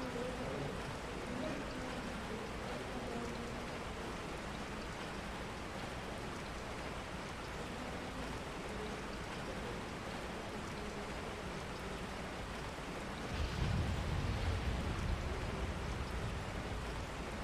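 Steady rain falling, with a faint murmur of voices early on. About thirteen seconds in, a low rumble swells for a couple of seconds and fades.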